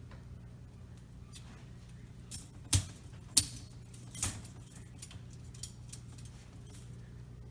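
Plastic dishwasher spray-arm assembly parts being handled and snapped into place: three sharp clicks and knocks a little under three, three and a half, and four seconds in, with lighter ticks between, over a steady low hum.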